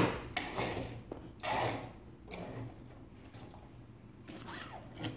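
Small plastic toys being handled on a tabletop: a loud knock at the start, then scattered plastic clicks and short rattles.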